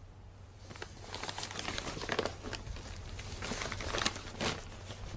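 Brown wrapping paper crinkling and rustling as a parcel is opened by hand, in irregular crackles that start about a second in.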